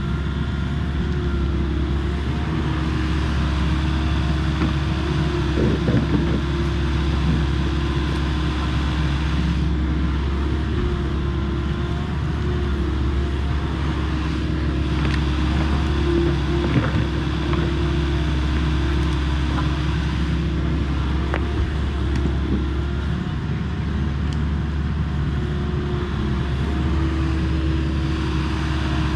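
Volvo ECR58D mini excavator's diesel engine running steadily as it digs, its hum wavering a little as the hydraulics work. A few short knocks of the bucket and soil come through, about six seconds in and twice more past the middle.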